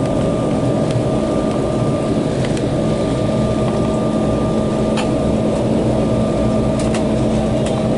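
Embraer 190 cabin during takeoff: the GE CF34-10E turbofans run at steady high thrust, giving a loud rush and deep rumble with a steady whine on top. A few sharp clicks and rattles from the cabin come through it.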